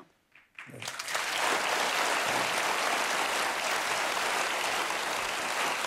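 Studio audience applauding, starting about a second in and then holding steady.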